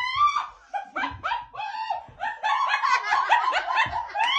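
A person laughing hard in a fast run of short, high-pitched bursts.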